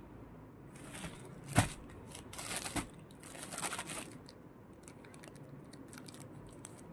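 Plastic courier mailer bag crinkling and rustling as it is picked up and handled, with a sharp crackle about one and a half seconds in. Near the end come fainter clicks as scissors start cutting into the plastic.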